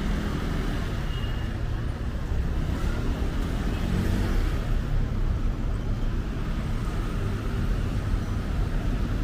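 Street traffic: cars driving by, heard as a steady, mostly low-pitched noise with no sharp sounds.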